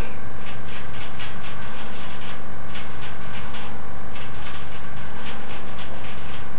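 Angora rabbit licking, in runs of soft quick ticks about four or five a second that stop and start several times, over a loud steady low hum.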